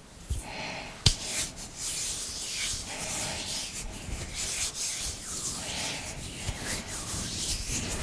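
Hands rubbing together, palms and fingers sliding against each other in repeated strokes, with a single sharp click about a second in.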